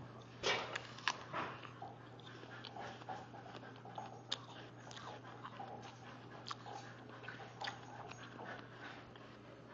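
Blue heeler (Australian cattle dog) at play on a parquet floor. Scattered clicks and knocks of paws and toys on the wood, the loudest about half a second and a second in, over a low steady hum.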